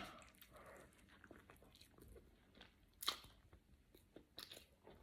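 Faint chewing and crunching of food close to the microphone, with a sharper crunch about three seconds in.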